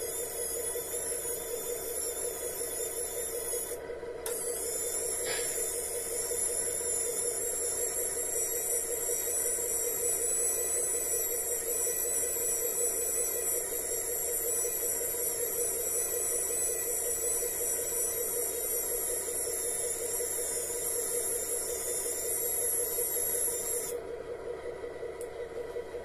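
The small electric drive motors of an RC tow truck's underlift arm whining steadily as the arm moves, with a short break about four seconds in, stopping about two seconds before the end.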